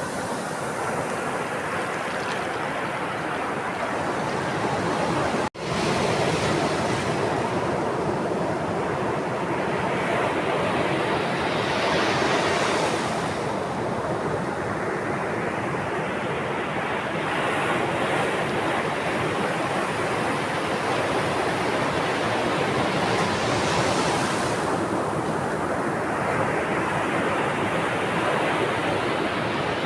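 Sea waves washing onto a shore in a continuous surf, swelling and breaking about every ten to twelve seconds. There is a split-second dropout about five seconds in.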